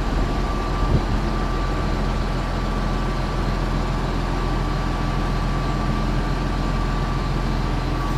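Tractor engine running steadily, with a single knock about a second in.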